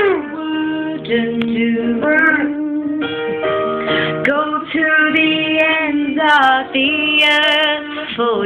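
A husky howling along with a woman singing, in long held notes that bend and waver in pitch.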